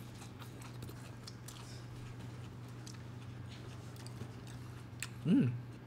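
Quiet room with a steady low hum and faint scattered clicks and rustles; about five seconds in, a person makes a short vocal sound that rises and falls in pitch.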